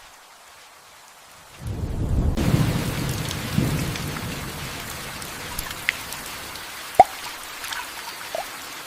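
Thunderstorm: after a faint hiss, a low roll of thunder rumbles in about a second and a half in and slowly fades as heavy rain sets in. Scattered large drops plop, one sharp plop about seven seconds in.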